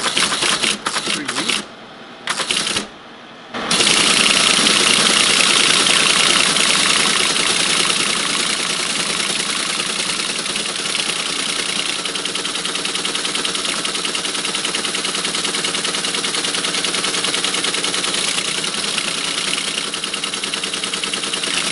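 A 1964 Teletype ASR 33 printing, a fast, even mechanical clatter of type strikes. It breaks off twice for a moment in the first few seconds, then runs on without a break.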